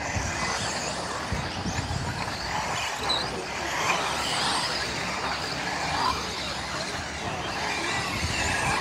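Several 1/10-scale electric four-wheel-drive off-road RC buggies racing, their motors whining in overlapping rising and falling pitches as they accelerate and brake.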